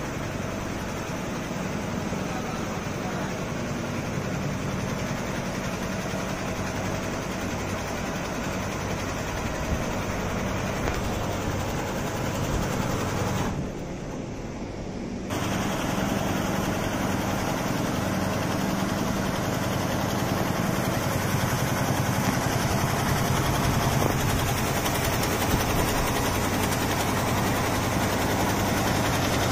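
Richpeace multi-needle quilting and embroidery machine running while stitching quilted saddle-pad fabric: a steady mechanical hum and clatter. About halfway through, the sound turns quieter and duller for a couple of seconds.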